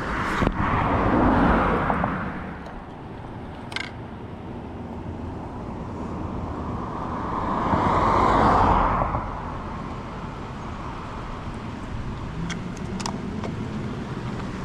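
Two road vehicles passing one after the other, each a rush of tyre and engine noise that swells and fades: the first peaks about a second in, the second about eight seconds in. A few short clicks come between them.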